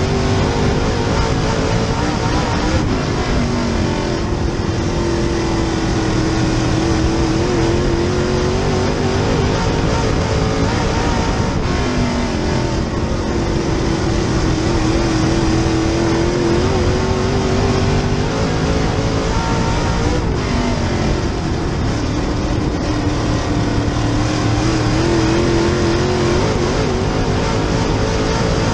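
Super Late Model race car's V8 engine at racing speed, heard from inside the car. The engine note climbs along each straight and drops for the corners, a cycle that comes round about every eight to nine seconds.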